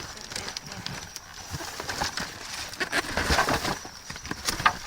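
Rummaging through discarded goods: irregular rustling, crinkling and knocking of packages and bags being handled and shifted.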